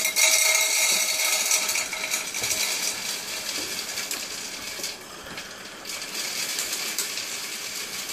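Small pellets poured from a plastic bag into a tall metal cylinder, a steady rattling, hissing stream of grains hitting the metal. It is loudest at first, breaks off briefly about five seconds in, then runs on.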